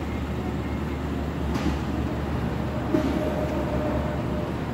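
Steady low engine rumble of work vehicles, a loaded forklift among them, with a short knock about three seconds in.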